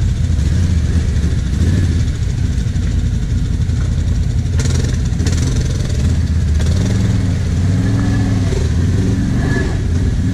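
Quad (ATV) engines running in mud, a steady low drone that rises and falls in pitch as the throttle is blipped from about two-thirds of the way in.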